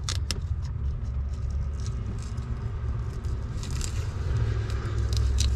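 A steady low rumble, with a few sharp clicks just after the start and near the end and faint crackling between, as an adhesive Velcro strip is pressed by hand along the edge of a van's headliner.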